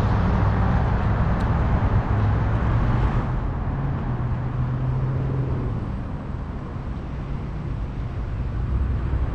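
Road traffic on a city street, heard from a bicycle riding alongside it, as a steady low rumble. The traffic sound eases off about halfway through and builds again near the end.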